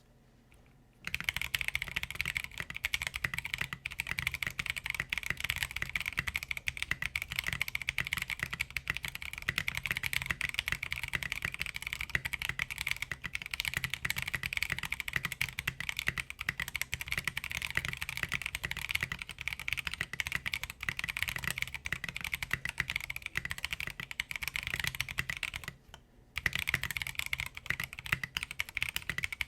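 Continuous fast typing on a 60% mechanical keyboard with Blue Velvet tactile switches, KAT keycaps, an aluminium plate and a silicone-dampened plastic case: a dense, fairly deep and muted clacking. It starts about a second in and breaks off briefly a few seconds before the end.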